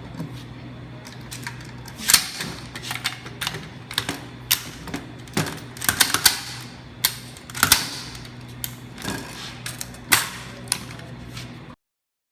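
Metal and plastic parts of an M16A1 rifle clicking and clacking irregularly as the rifle is handled and taken apart or put back together, over a steady low hum. The sound stops suddenly near the end.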